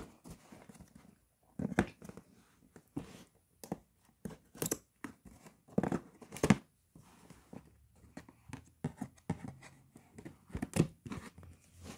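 Cardboard box being handled and its top flap opened: irregular rustles, scrapes and taps of cardboard, with a few sharper knocks.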